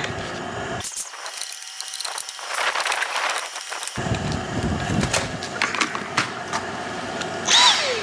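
Plastic parts of a Dyson cordless vacuum being pressed and fitted together by hand during reassembly: scattered clicks, knocks and scraping of plastic against plastic and a wooden floor, with a brief high squeak near the end.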